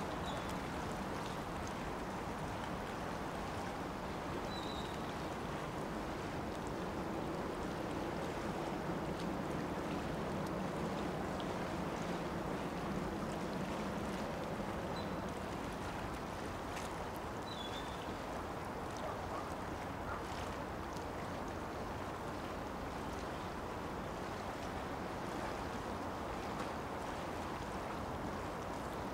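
Steady waterfront ambience: an even rush of wind and water, with a few faint, short high chirps.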